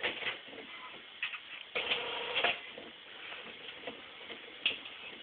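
Inkjet printer starting a print job: scattered mechanical clicks, with a louder stretch of clattering about two seconds in and another sharp click near the end.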